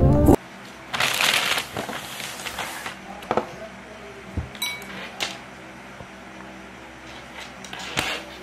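Music cuts off right at the start. Then come the sounds of items being cleared off a desk: a rustle, then scattered light clicks and knocks as cables, a pouch and other small things are picked up and set down.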